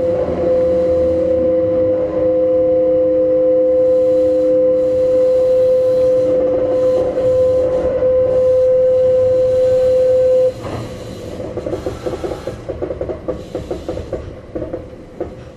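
Kintetsu 1430-series electric train running, its inverter drive giving a steady whine that cuts off suddenly about ten seconds in as power is shut off. The train then coasts more quietly, with a quick run of wheel-on-rail clicks and rattles.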